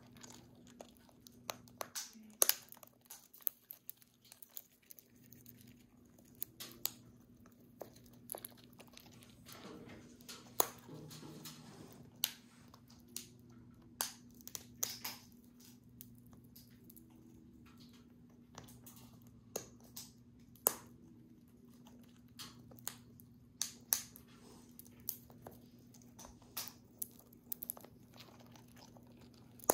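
An African grey parrot and a cockatoo cracking pine nut shells with their beaks: irregular sharp cracks and crunches, sometimes several a second, over a faint steady hum.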